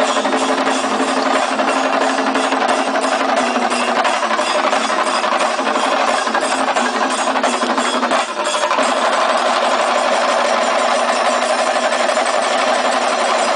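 A large ensemble of chenda drums, Kerala cylindrical drums beaten fast with sticks in a dense, continuous rhythm. It dips briefly about eight seconds in, then carries on.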